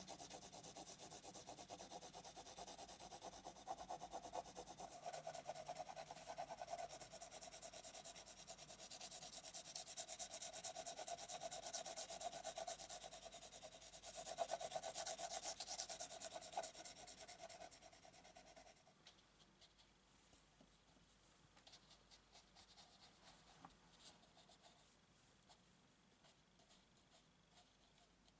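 Graphite pencil shading on cold-pressed (not hot-pressed) watercolour paper: quick, continuous back-and-forth scratching strokes. The strokes stop about 19 seconds in, leaving only faint, scattered scratches.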